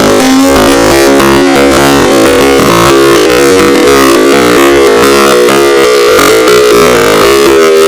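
Emergency alert system alarm: harsh, distorted synthesized tones at full loudness, several pitches layered and shifting every so often.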